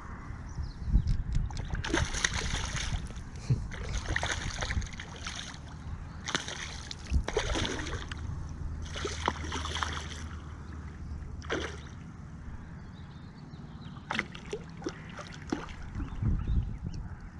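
A hooked fish splashing at the surface of a lake, several separate splashes over about ten seconds as it is played in towards the landing net.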